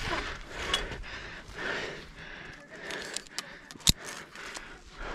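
A hiker climbing steep bare granite between steel cables: shoes scuffing and scraping on the rock, with scattered small clicks and one sharp click a little under four seconds in.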